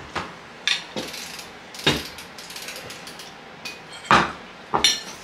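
Tableware clatter: about six sharp clicks and knocks of a metal spoon and fork against ceramic plates and a soda can being set down on the table, the loudest about two seconds and four seconds in.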